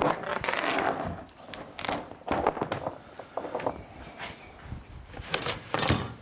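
A hand spray bottle hissing out short squirts of isopropyl alcohol, and a rag rubbing and wiping over the surface to clean it before the adhesive goes on.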